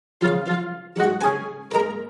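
An iPad ringtone starting about a fifth of a second in: a plucked-string melody, its notes coming in quick groups of two about every half second over a low bass.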